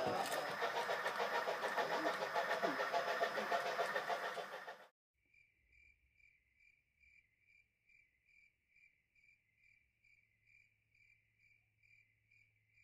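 Sound-equipped HO scale steam locomotive running, its onboard speaker giving dense, rhythmic chuffing with hiss, which cuts off abruptly about five seconds in. After that, a faint, evenly repeating electronic ding, a little over two a second, like a model grade-crossing bell.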